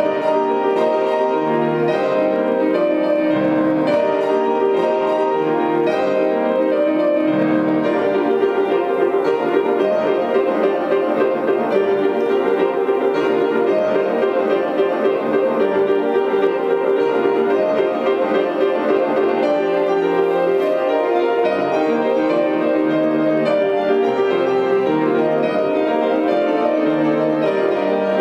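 Grand piano played four hands: dense, fast-moving interlocking note patterns at a steady loudness without a break.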